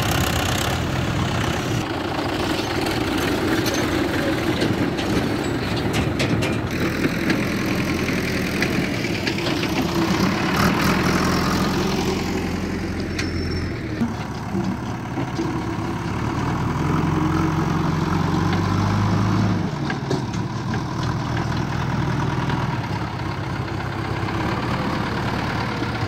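Diesel engines of a Mahindra Yuvo tractor and a JCB 3DX backhoe loader running under work, the engine note shifting up and down in pitch several times.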